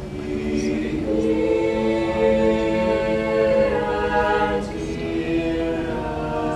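Mixed-voice chamber choir singing held chords, coming in at the start, swelling to its loudest through the middle and easing onto a softer chord shortly before the end.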